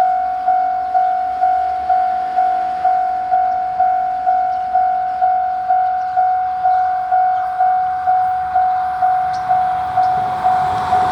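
Japanese railway level-crossing alarm ringing: one electronic bell tone struck about twice a second, each strike fading before the next, the warning that a train is approaching. Near the end the noise of the oncoming E3-series Shinkansen starts to rise under it.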